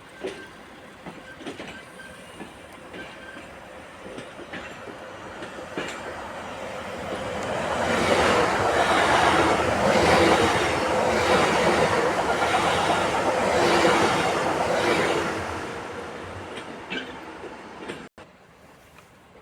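A train passing on the track, its wheels clattering rhythmically over rail joints. It grows loud about seven seconds in, stays loud for several seconds, then fades and cuts off abruptly near the end.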